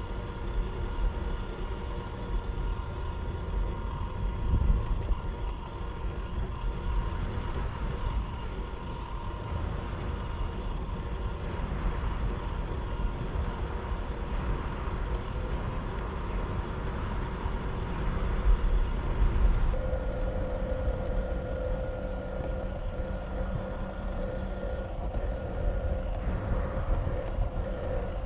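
Traxxas TRX-4 RC crawler driving, its electric motor and gearbox whining steadily over low rumbling. The whine shifts in pitch about two-thirds of the way through.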